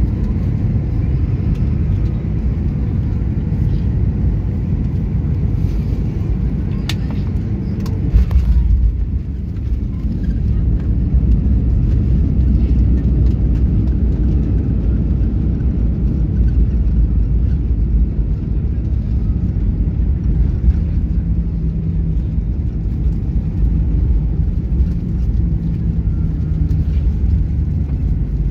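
Airliner cabin noise during landing, a Boeing 737 heard from a window seat by the engine: a steady low roar, a sharp thump about eight seconds in as the wheels touch down, then a louder steady rumble as it rolls out along the runway.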